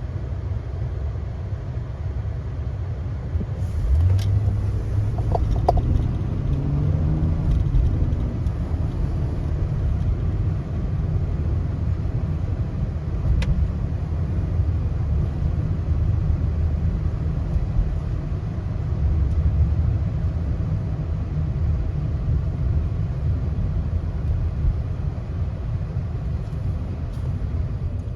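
A car being driven: a steady low rumble of engine and road, getting louder about four seconds in, with a brief rising tone soon after.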